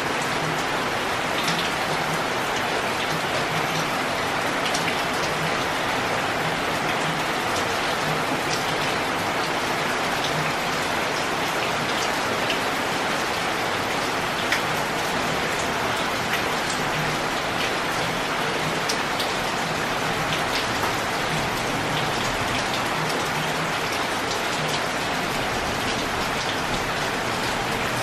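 Steady rain, with water running off a roof edge in streams and scattered sharper drips among the even hiss.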